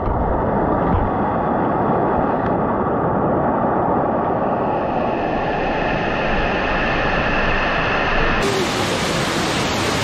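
Steady rush of white water as Thudugala Ella waterfall pours over and down the rocks, running high after heavy rain. Near the end the sound turns brighter and more hissing.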